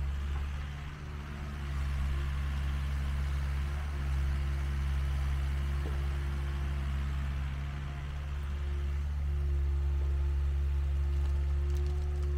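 Mini excavator's diesel engine running steadily while it works, with a few sharp clicks near the end.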